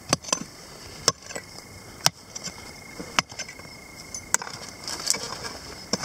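Short-handled digging tool, its metal head striking stony earth in a hole: about six sharp strikes at uneven spacing, roughly one a second.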